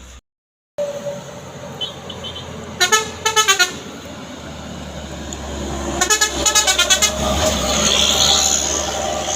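A vehicle horn sounds in two bursts of rapid, fluttering toots, about three seconds in and again about six seconds in. Under it a heavy vehicle is running, growing louder toward the end.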